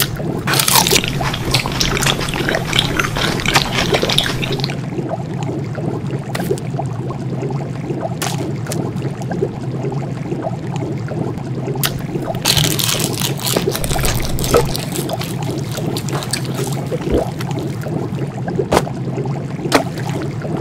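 A pot of broth bubbling and gurgling, with a steady low hum underneath. Louder hissing, bubbling spells come near the start and again about two-thirds of the way through, with scattered sharp clicks.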